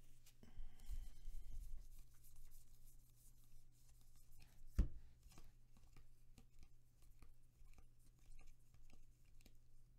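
A stack of Bowman baseball cards being thumbed through by hand: faint repeated clicks and slides of card stock as each card is moved to the back, with one sharper knock about five seconds in.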